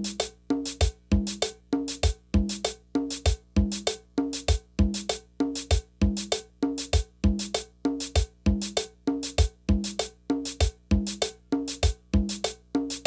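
Music with a fast, steady drum-machine beat: sharp percussive hits and a short pitched bass-and-tone figure repeat in an unchanging loop.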